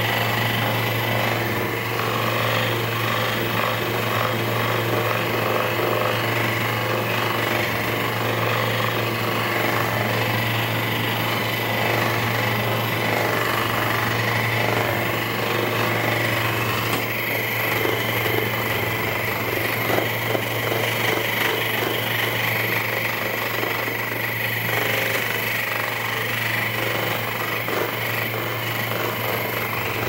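Handheld percussion massage gun running steadily, its head hammering against a person's back.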